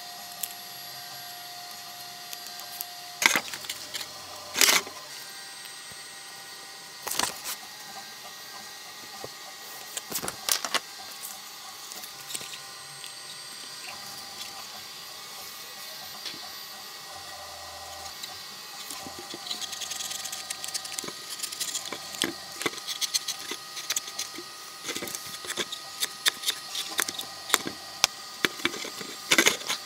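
Bench handling sounds of cutting black card and fitting it into a 3D-printed plastic camera box: a few separate sharp clicks and knocks, then a long run of small quick clicks and scrapes in the second half.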